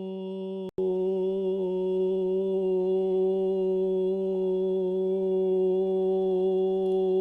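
A man humming one steady low note into a microphone. Under a second in it cuts out for a moment, then comes back louder, as the recording switches from one microphone to the other.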